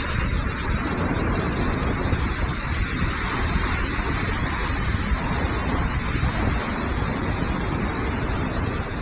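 Hurricane-force wind and driving rain in a steady, unbroken rush, with heavy wind buffeting on the phone's microphone.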